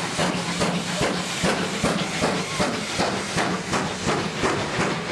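Steam locomotive working a train, its exhaust chuffing in an even rhythm of about four beats a second over a steady hiss of steam.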